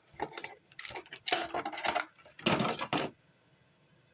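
A knife's box and packaging being handled and opened: a run of clicks, scrapes and rustles for about three seconds, then it goes quiet.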